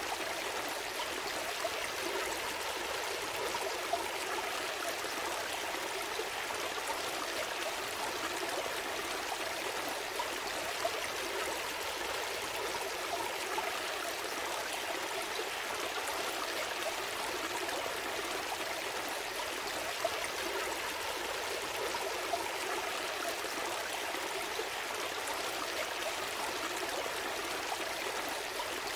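A gentle stream flowing steadily, water noise that stays even throughout with little low rumble.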